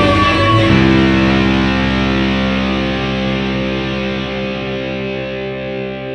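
Background music: distorted electric guitar; after a chord change about a second in, a chord is held and slowly fades.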